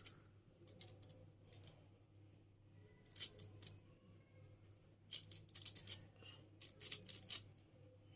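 Faint clicking and rustling in short clusters from hands handling and shaping the soft potato pieces, over a low steady hum.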